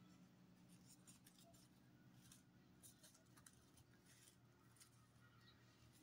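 Near silence with faint, short scratchy rustles of paper strips being folded and woven by fingers, a few at a time, over a low steady hum.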